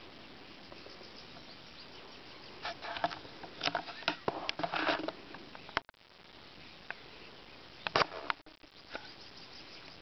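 Outdoor ambience: a faint steady hiss broken by crackling and rustling noises, a dense cluster in the middle and a shorter one about eight seconds in.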